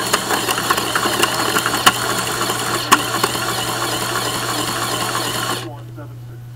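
Lego shredder's plastic gears and cutter rollers running with a dense, steady clatter of small clicks as they chew aluminium foil bits. The clatter cuts off suddenly about five and a half seconds in, leaving a low steady hum.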